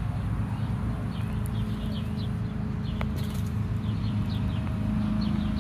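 A steady low mechanical hum, with small birds chirping faintly and intermittently over it and a single light tick about three seconds in.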